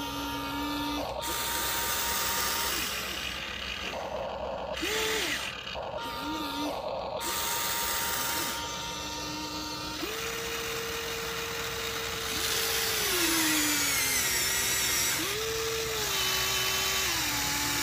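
Electric motors of a remote-control toy excavator whining as the boom, arm and bucket move. Each run starts and stops, and the pitch steps up and slides back down as the motors strain and ease off.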